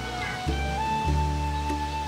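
Background instrumental music: a long held high note over low bass notes that change every half second or so.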